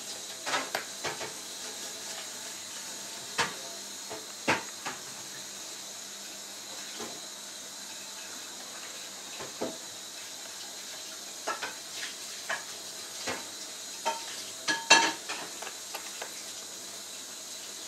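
Steel drift clinking and scraping against the cartridge bearing inside a Shimano Hollowtech II bottom bracket cup, as it is set against the bearing to drive it out. Irregular sharp metal clicks, loudest in a quick cluster near the end, over a steady hiss.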